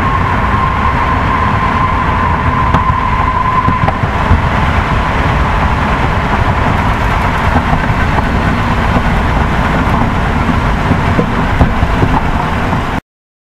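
A vehicle running: a steady, loud low rumble with a thin whine over it that fades out about four seconds in. The sound cuts off abruptly near the end.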